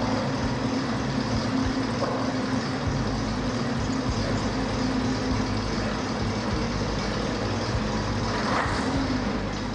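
The engine of the pre-war London Transport STL double-decker bus STL2377 running steadily at idle, with a low, even hum.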